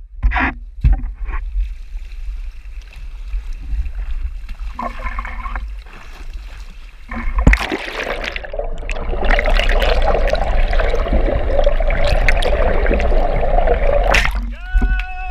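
Camera handling knocks over a low rumble. About halfway through, the camera goes underwater and water rushing and bubbling against it becomes loud and steady, then drops away near the end.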